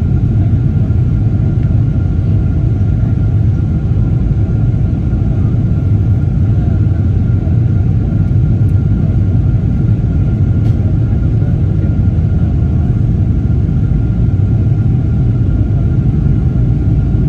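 Steady cabin noise of a Boeing 777-300ER with GE90 engines on approach: a loud, even rumble of engines and rushing air, with a thin steady whine above it.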